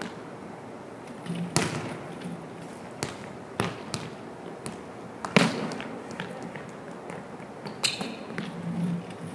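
Volleyball knocking and bouncing on a hardwood gym floor during setting practice: several sharp smacks, the loudest about five seconds in. A short sneaker squeak near the end.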